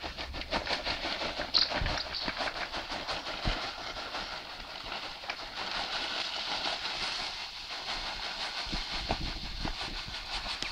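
Aluminium foil reacting with caustic soda solution, fizzing and crackling steadily with many rapid ticks as hydrogen bubbles off, vigorous enough that it is close to spilling over.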